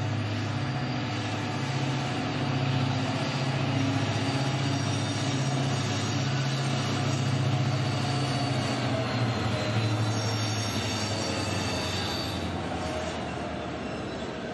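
FGC class 254 diesel locomotive passing at low speed with freight wagons: a steady engine drone under the rumble of wheels on rail. A thin, high wheel squeal comes in about nine seconds in, and the engine sound eases off slightly near the end.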